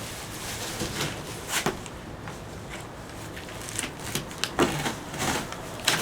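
Cardboard shipping box being pulled and worked open by hand: scattered rustling and scraping with a few sharp knocks.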